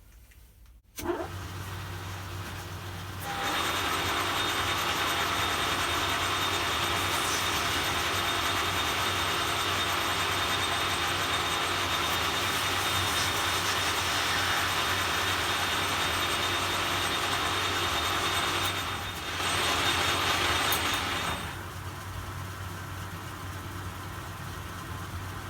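Grazioli Fortuna metal lathe starting up about a second in and running with a steady hum, then a cutting tool facing off the end of the stock with a steady cutting noise from about three seconds in. The cutting stops about four seconds before the end, and the lathe keeps running.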